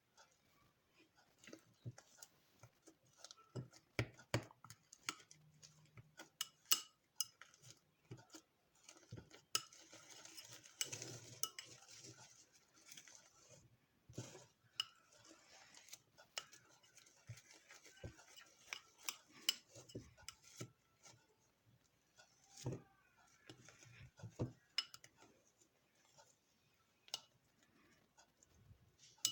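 A utensil clicking and scraping against a bowl as fluffy slime of glue, shaving foam and laundry detergent is stirred, with irregular taps throughout and a longer, noisier stretch of stirring about ten seconds in. The slime still sticks a little and more detergent is being mixed in.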